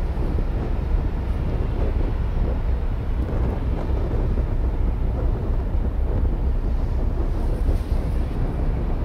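Wind buffeting the microphone: a steady low rumbling noise, with no distinct engine note or other event standing out.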